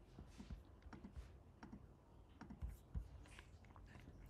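Faint, irregular clicking from a computer mouse and keyboard.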